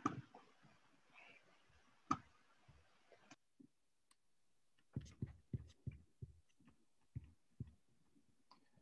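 Faint, scattered clicks and taps of someone working a computer's mouse or keyboard: a single click about two seconds in, then a quick run of about eight between five and eight seconds in, with near silence between.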